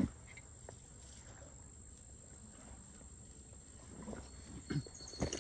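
Quiet outdoor background with a faint, steady high tone, and a few soft footsteps in grass near the end.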